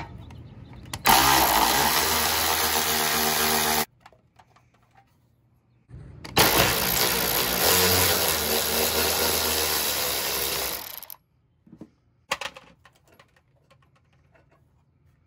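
A power tool runs in two bursts, about three seconds and then about four and a half seconds long, backing out the car's rear bumper bolts. A few light clicks follow.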